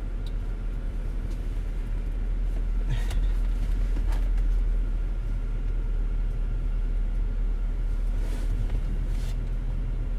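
Car engine idling, heard from inside the cabin as a steady low rumble, with a few faint clicks and rustles.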